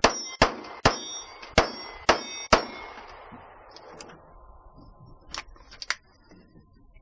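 Six rapid shots from a 9mm Glock pistol over about two and a half seconds, with steel plate targets ringing as they are hit. The ringing fades over the next second, and a few light clicks come near the end.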